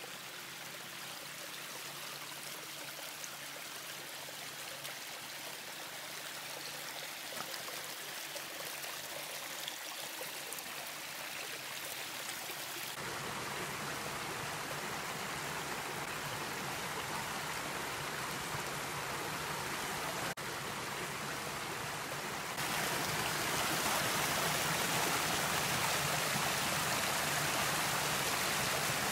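Shallow rocky creek running over stones, a steady rushing of water. It grows louder about halfway through and again a few seconds before the end.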